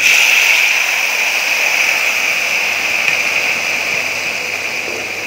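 Sizzling as a water-mixed paste of ground spices is poured into hot mustard oil with fried onion, ginger and garlic in a kadai. The loud hiss starts suddenly as the paste hits the oil and slowly dies down.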